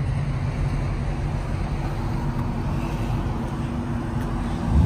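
A car engine idling steadily, a low, even hum with no change in revs.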